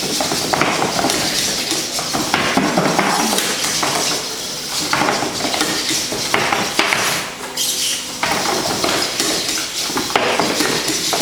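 Two small servo-driven humanoid battle robots clattering in a bout: a busy run of knocks and clicks from their feet and bodies striking the ring and each other, over the whir of their servos.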